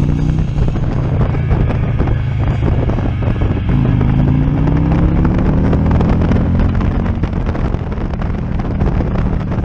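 Touring motorcycle engine running while ridden along a street, with wind noise on the microphone. About four seconds in the engine pulls harder and its pitch rises, then holds steady.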